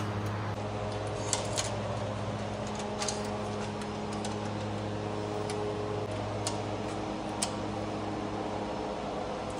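Steady mechanical hum in a workshop, with a few short, light clicks of tools and parts being handled.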